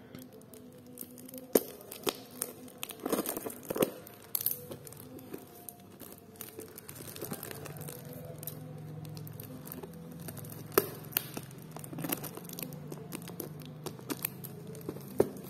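Scissors cutting into a paper parcel wrapped in plastic tape, with plastic crinkling and tearing as it is handled. Sharp snips and crackles come at irregular intervals.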